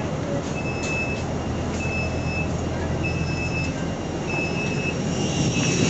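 Airport apron shuttle bus idling with its warning beeper sounding a steady, evenly spaced beep about every 1.2 seconds, four times, over the low rumble of the bus engine. Near the end a rushing noise grows louder.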